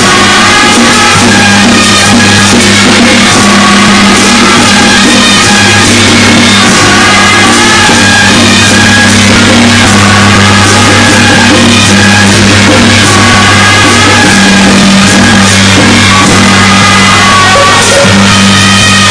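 Loud music with drums and a melody, over a steady low hum.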